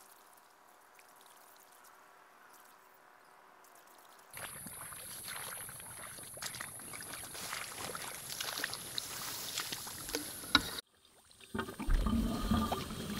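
Footsteps wading and pushing through shallow water and dense vegetation, with splashing and rustling over a steady high-pitched hiss, starting about four seconds in after near silence. It cuts off abruptly near the end, and louder brushing and handling noise follows.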